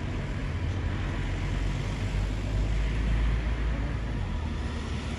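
Steady low rumble under an even hiss of outdoor background noise, swelling slightly in the middle.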